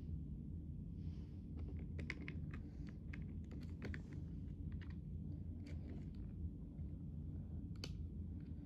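Scattered light clicks and taps of a screw and screwdriver being worked into an opened iMac G5, over a steady low background hum.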